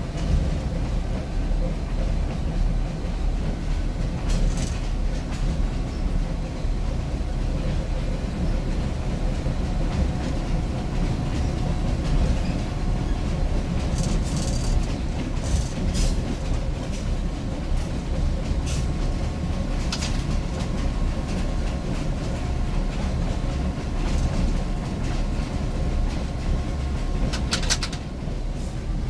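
Diesel locomotive No. 4266 running along the track, heard from inside its cab: a steady engine rumble with a faint steady whine. Now and then there is a sharp clatter of the wheels on the rails, most marked near the end.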